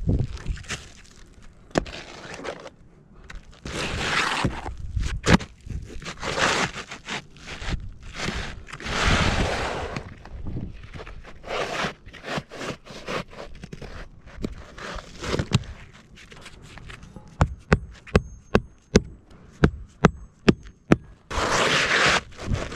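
Asphalt shingles scraping and rustling as gloved hands slide and press them into place around a roof pipe boot, in several swishing strokes. Near the end comes a quick run of about ten sharp taps.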